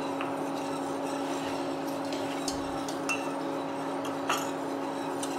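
Small wire whisk stirring milk with a wheat-flour slurry in a stainless steel pot, with a few light clinks of the whisk against the pot. A steady hum, from the induction cooktop, runs underneath.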